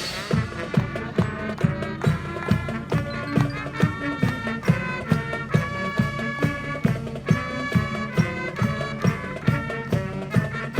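High school marching band playing a tune, with drums keeping a steady beat under sustained wind chords.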